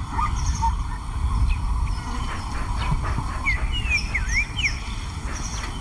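Several short bird chirps, mostly in the second half, over a steady low rumble of outdoor ambience.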